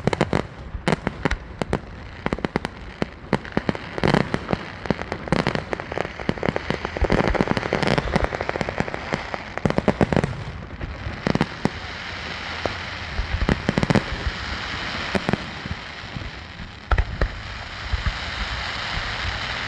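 Aerial fireworks show: rapid bangs and pops, densest about halfway through, giving way in the second half to a steady crackling hiss with only occasional bangs.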